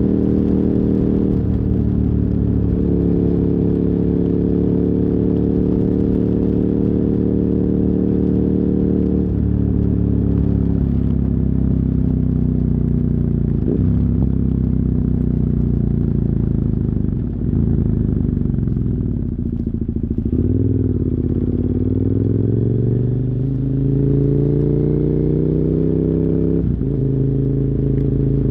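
2007 KTM 990 Super Duke R's V-twin running through dual Yoshimura carbon exhausts, heard from on board while riding. The engine holds a steady note for the first third, falls as the bike slows, dips briefly past the middle, then rises under throttle. Near the end the note drops suddenly and settles again.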